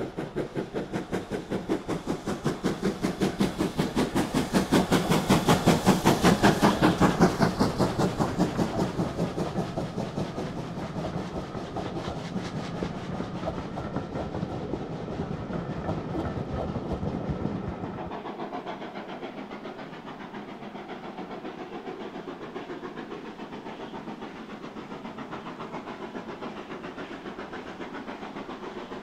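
Steam locomotive working hard, its exhaust beats coming in a rapid, even rhythm that grows louder to a peak about six seconds in, then fades as it moves away. The lowest rumble drops out suddenly about two-thirds of the way through, leaving softer beats.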